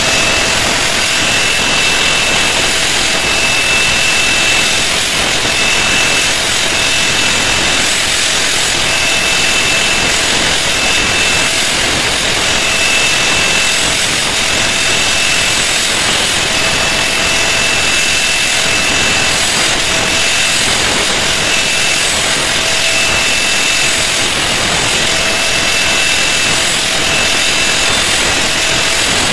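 Electric angle grinder running steadily while forged metal is held against its abrasive disc, a continuous grinding noise with a high whine that comes and goes every second or two.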